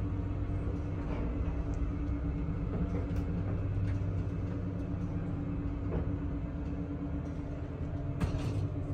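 1990s ZREMB passenger lift travelling in its shaft: a steady hum and rumble from the car and its drive, with a few faint clicks and a brief louder clatter about eight seconds in.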